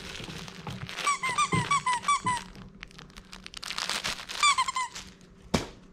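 Squeaker inside a plush dog toy being squeezed over and over: a quick run of about eight short squeaks, each dipping in pitch, about a second in, then three more near the end.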